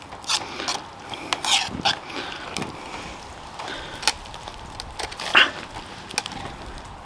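Irregular light clinks and knocks of metal cookware being handled, the loudest knock about five seconds in.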